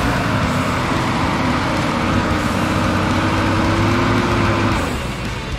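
Jeep Wrangler's engine working under load as it crawls up a steep, rutted dirt climb, the revs held and creeping up slightly, then easing off about five seconds in.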